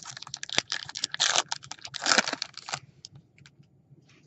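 Baseball trading cards and a foil pack wrapper being handled: quick card clicks and flicks with two louder crinkling rustles in the first couple of seconds, dying away after about three seconds.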